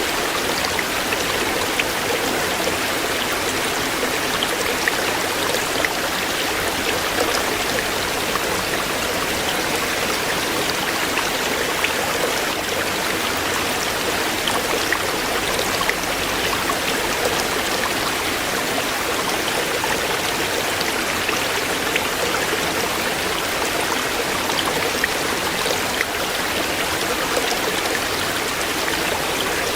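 Shallow stream flowing over stones, a steady rushing and babbling with many small splashes.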